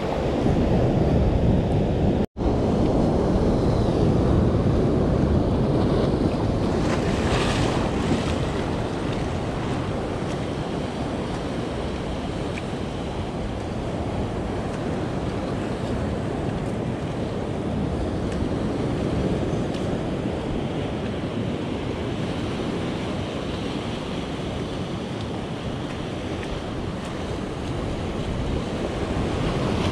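Surf washing over a rocky shore with wind buffeting the microphone: a steady rush of noise that swells briefly about seven seconds in. The sound cuts out for an instant about two seconds in.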